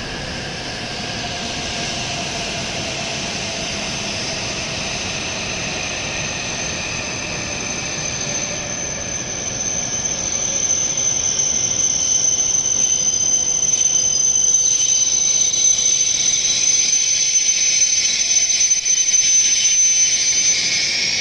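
W7 series Shinkansen train braking into the platform and coming to a stop. A whine falls in pitch as it slows, then a high, steady brake squeal grows louder over the last ten seconds and cuts off as the train halts.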